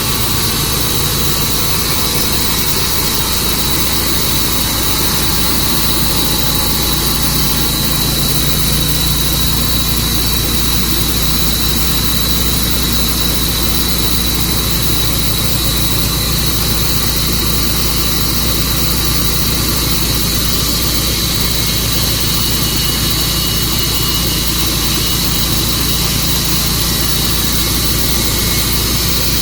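Tru-Cut sawmill running steadily under power, with a constant high whine over the engine noise throughout.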